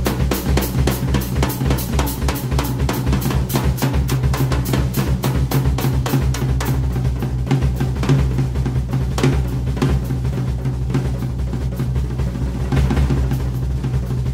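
Solo on a Ludwig drum kit: a fast, even run of strokes across snare and toms with bass drum underneath. After about five seconds it breaks into sparser, irregular hits, with brighter cymbal strikes near the middle and end.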